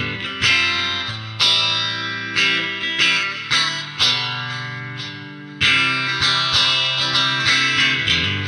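Electric guitar with an EMG DG-20 active single-coil pickup set, played on the neck pickup: single plucked notes and short phrases, each note ringing out and fading. Notes come more quickly after a brief dip about five seconds in.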